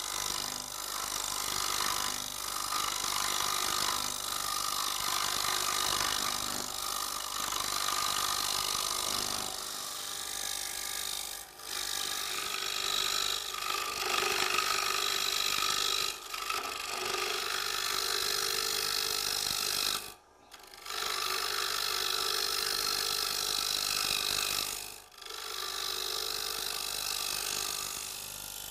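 A round tungsten carbide cutter on a Robert Sorby TurnMaster tool cutting a bowl blank spinning on a wood lathe, a steady rasping scrape as waste wood is turned off to form the bowl's outside. The cut breaks off briefly a few times, most clearly about twenty seconds in.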